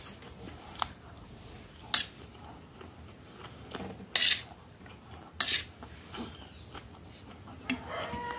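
A metal spoon scraping and clinking against a stainless steel plate while scooping up rice, in a few sharp, brief strokes spread over several seconds.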